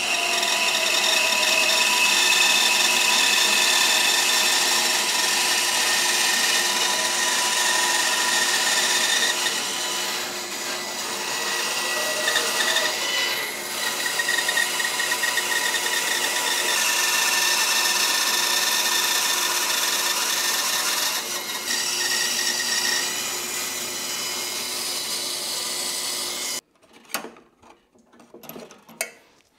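Bandsaw fitted with a 1/4-inch blade cutting a curved internal cut through a laminated block of sapele, maple and birch ply. It makes a steady cutting noise with a high whine, which cuts off abruptly near the end, followed by a few faint knocks.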